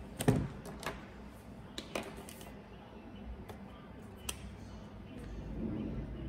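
Copic alcohol markers handled on a wooden desk: several light clicks and taps, the loudest about a third of a second in. Near the end a soft rubbing as a marker tip is worked across paper, colouring a drawing.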